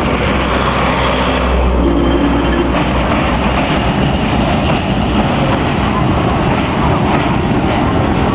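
Loud, steady vehicle rumble: engine and running noise over a constant wash, with a strong low hum for the first three seconds or so.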